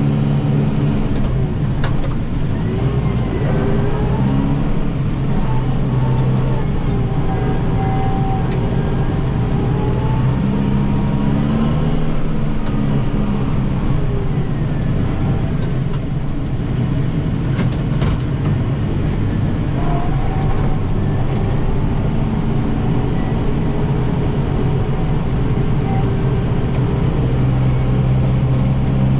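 Kubota 7060 tractor's diesel engine running steadily while powering an 80-inch Pronovost snowblower through heavy, wet snow. A few brief knocks sound near the start and again about eighteen seconds in.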